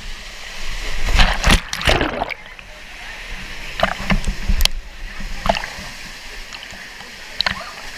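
Water rushing steadily, with several sudden splashes over it; the loudest cluster comes about one to two seconds in.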